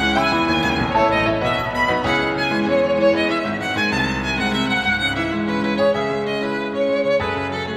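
Background music: a violin playing the melody of a violin cover of an anime theme song, over a lower backing accompaniment.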